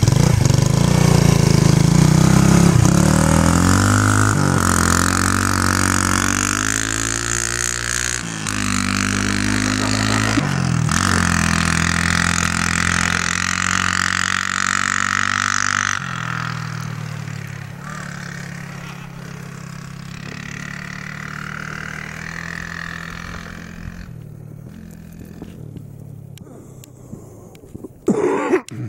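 Three-wheeler ATV engine revving up and down as it rides through deep snow, the engine note fading into the distance over the second half. A short burst of noise near the end.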